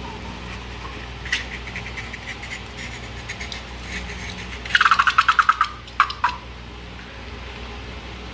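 Rubber balloon and slime being handled: a quick run of about ten sharp rubbing squeaks in about a second, then two more, over a steady low hum.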